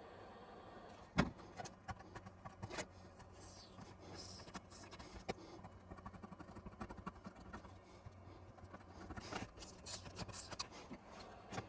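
A knock about a second in, then irregular scraping, ticking and crinkling as a plastic pry tool lifts the heat-softened old membrane keyboard off a Sinclair ZX81's case.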